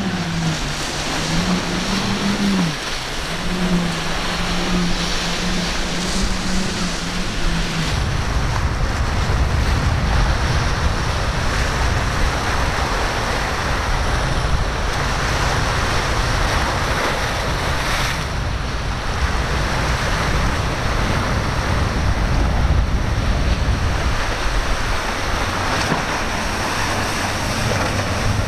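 Surf washing and wind buffeting the microphone, with a motorboat's engine droning and wavering in pitch for about the first eight seconds before it stops abruptly.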